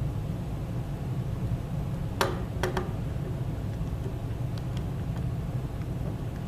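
Sharp plastic clicks, three close together about two seconds in and a few fainter ticks later, as the snap clips of an OtterBox Defender case's hard plastic shell are pried at. A steady low hum runs underneath.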